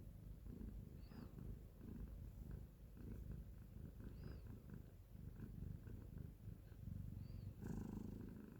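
Scottish Fold mother cat purring steadily while nursing her newborn kittens, with three short high squeaks spread through.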